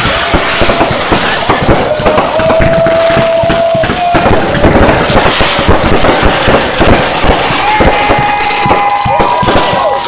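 Fireworks going off at close range: a dense, continuous barrage of crackling pops and bangs from rising shots and bursts. A few long held tones sound over it around the middle and near the end.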